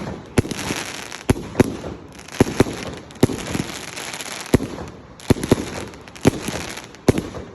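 Fireworks going off: a rapid, irregular series of sharp bangs, about two a second, with crackling between them.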